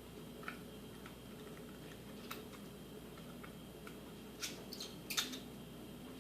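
Faint, scattered small clicks and ticks of a small screwdriver and screw against iPod Classic parts as the screw is fitted, with a quick cluster of sharper clicks near the end.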